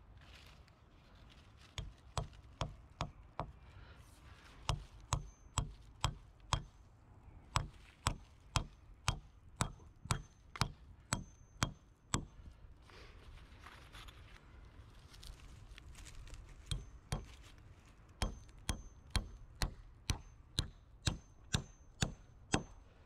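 A tool striking wood in steady, evenly spaced chopping blows, about two a second, in two long runs with a pause of a few seconds between them.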